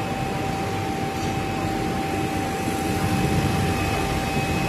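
Richpeace automatic single-head sewing machine running as its head stitches along a fabric template: a steady mechanical hum with a constant whine over it.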